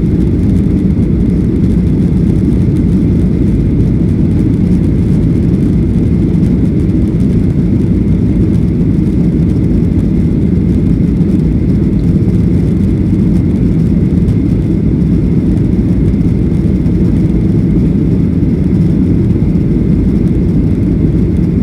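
Steady, loud roar of a jet airliner's engines and airflow heard inside the passenger cabin during takeoff. The aircraft is a Solaseed Air Boeing 737-800, and the sound stays even throughout, with a faint high whine above the low roar.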